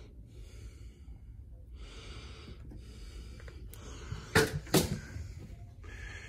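Close breathing into the microphone, with two sharp knocks about half a second apart a little past the middle.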